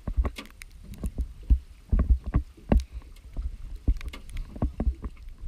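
Irregular knocks and low thumps from a small aluminium boat's hull, several a second, as it shifts against the shore.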